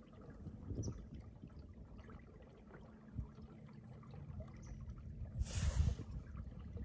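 Water lapping and trickling against the hull of a small boat as it turns in circles on a lake, over a faint steady low hum. A louder rush of noise comes about five and a half seconds in.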